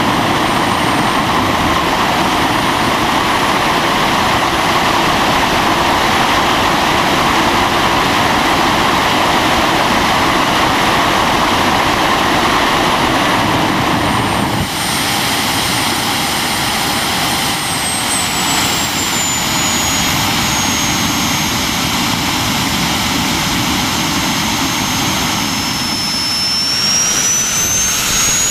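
Handmade turbojet engine with afterburner running on a test stand: a loud, steady jet rush with a thin high turbine whine over it. About halfway the sound abruptly changes character, the whine sinks in pitch, then near the end it climbs steeply as the engine spools up.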